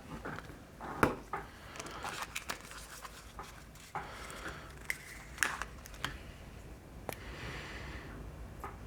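Small metallic clicks and taps, irregular and of varying strength, from tweezers handling the parts of a watch mainspring barrel.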